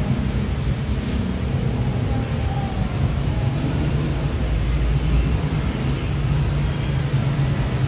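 Steady low rumble of street background noise, like traffic or engines running.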